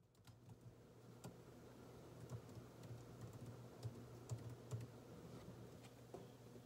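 Faint typing on a laptop keyboard: irregular soft key clicks over a low steady hum.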